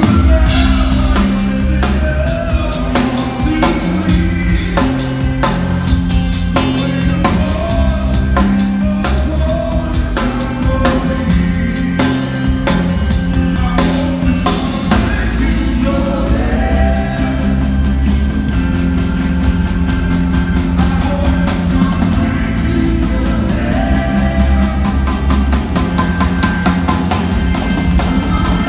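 Live rock band playing: a drum kit keeping a steady beat under guitar and bass notes, with a male singing voice at times.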